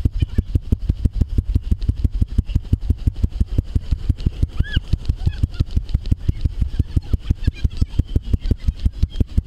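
An engine running steadily at idle: an even low pulse of about seven beats a second.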